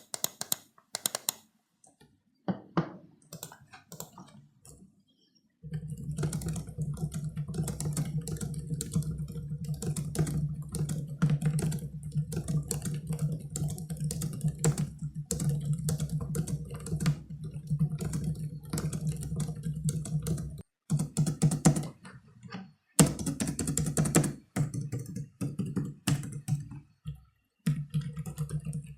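Typing on a Logitech K380 Bluetooth keyboard: a few scattered key presses at first, then a fast run of light, quick key clicks with brief pauses. A low steady hum sits under the typing from about five seconds in.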